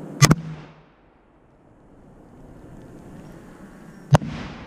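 A 4-inch aqua dahlia firework shell: a sharp doubled report as it is fired, then about four seconds later one loud bang as it bursts, each followed by a short rumbling echo.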